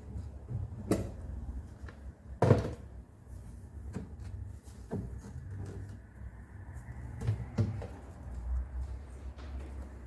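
Scattered knocks and clunks of handling work on a guitar repair bench, about six in all. The sharpest knock comes about two and a half seconds in, over a low steady rumble.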